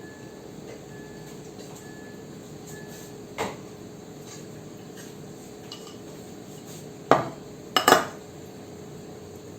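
Dishes and cutlery clinking: one sharp clink about a third of the way in, then a louder cluster of knocks and clinks near the end, over a steady low hum. Faint short beeps repeat about once a second during the first few seconds.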